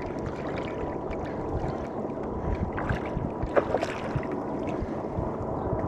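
Shallow water sloshing and splashing as a hooked big brown trout thrashes at the surface, with a louder splash about three and a half seconds in.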